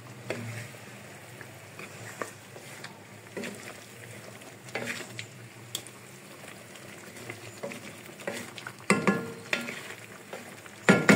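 Chicken pieces frying in oil and the liquid of beaten yogurt in a karahi, sizzling steadily while a wooden spatula stirs and scrapes against the pan with scattered clicks; a few louder knocks come near the end. It is the bhunai stage, the masala cooking down in the yogurt's own water.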